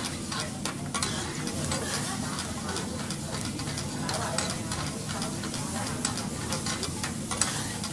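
Garlic slices frying in oil on a teppanyaki steel griddle, sizzling steadily, with frequent clicks and scrapes of metal spatulas on the plate as they are turned.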